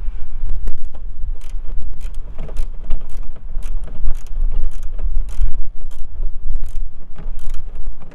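Hand ratchet clicking in short irregular runs as a headlight mounting bolt is tightened down, over a low rumble.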